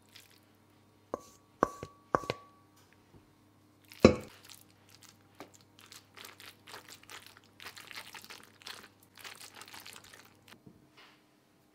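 Wooden spatula knocking three times against a metal bowl with short ringing clangs, then one louder knock with ringing about four seconds in. After that, soft squishing and scraping strokes as the spatula spreads and presses egg-coated long pasta into a metal loaf tin.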